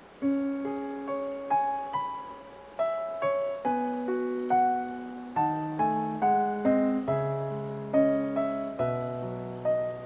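Background piano music: a slow, gentle melody of single notes and soft chords, each struck and ringing away, coming in just after the start and growing a little quicker about halfway through.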